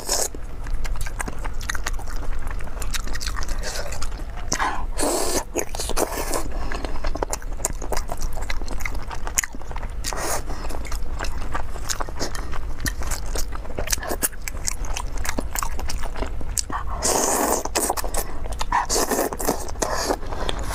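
Close-miked wet chewing and biting of saucy meat, with many small lip smacks and mouth clicks. A few louder bursts of mouth noise come about five seconds in and twice near the end.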